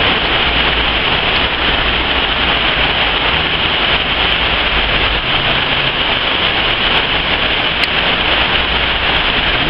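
Heavy storm rain pouring down as a steady, loud hiss, with a low rumble under it for about the first five seconds.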